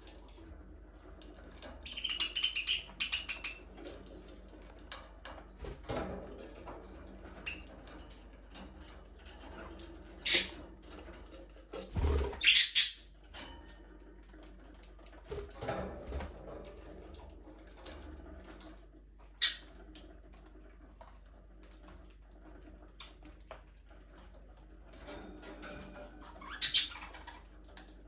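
Budgerigars chirping: a burst of high chirps a couple of seconds in, then scattered short chirps and clicks.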